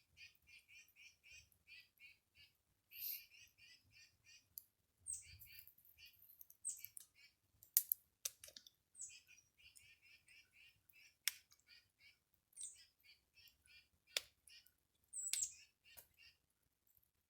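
A bird calling faintly with a long run of short, high chirps, about three to four a second, with a few sharp clicks mixed in.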